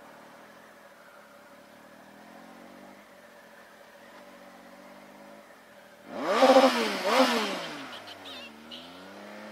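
Motorcycle engine running low and steady, then about six seconds in it revs up loudly twice in quick succession, each rise dropping away, before settling back to a lower run.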